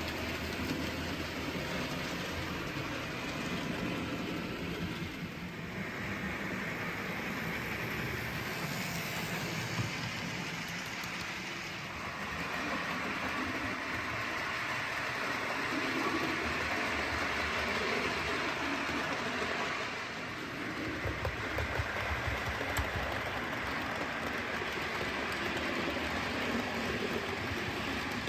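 OO gauge model diesel locomotives running on a model railway layout: a continuous train-like running sound that swells and eases a few times.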